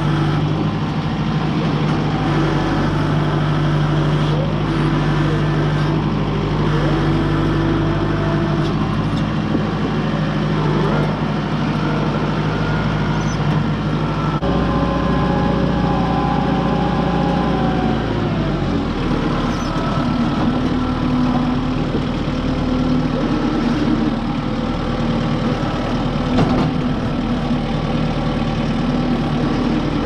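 Kubota M6060 tractor's four-cylinder diesel engine running steadily while the tractor grades dirt. The engine note changes partway through.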